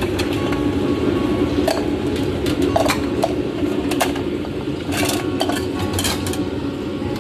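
Porcelain bowls and metal utensils clinking as they are handled: about ten short, sharp clinks at uneven intervals over a steady low hum.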